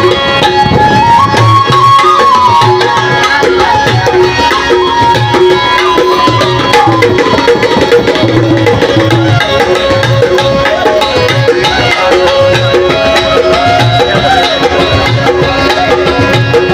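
Instrumental music: tabla drumming in a steady rhythm under a sustained melody that moves in held, stepped notes.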